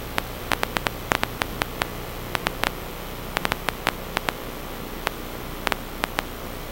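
Steady static hiss with irregular sharp crackling clicks, several a second at their busiest and thinning out in the second half.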